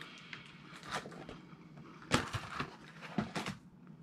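Chewing a crisp vegetable cracker, with a few short, louder crunches about a second in, around two seconds and just after three seconds.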